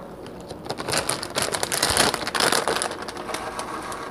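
Whole black peppercorns being shaken out of their container into a pot of vinegar sauce: a dense patter of small rattling clicks, loudest from about one to three seconds in, then thinning out.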